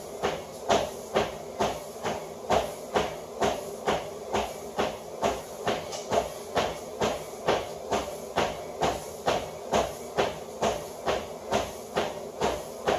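Brisk walking footfalls on a motorized treadmill belt and deck, an even beat of about two steps a second.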